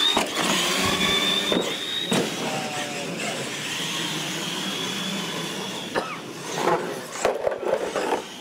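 Two electric R/C monster trucks racing at full throttle: a high motor and gear whine rises and holds. Several sharp knocks and clatters near the end as the trucks hit and bounce over the course.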